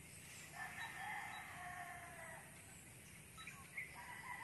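A rooster crowing faintly: one drawn-out crow starting about half a second in and lasting about two seconds, then another beginning near the end.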